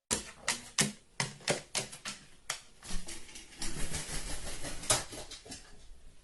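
Irregular light taps and clicks on a hard surface, about two or three a second, crowding into a quick patter in the middle.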